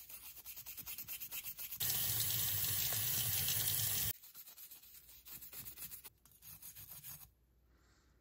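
Quick, rhythmic scrubbing strokes of an abrasive pad on a steel bolt, rubbing off its black finish down to bare metal. About two seconds in, a louder steady rushing noise takes over for two seconds, then the scrubbing strokes return and stop near the end.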